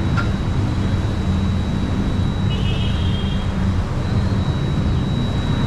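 Steady rumble of a passenger train running slowly, heard from on board as it crosses a river bridge.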